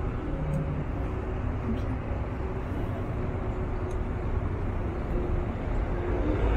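Steady city street noise: the low rumble of road traffic passing on the street.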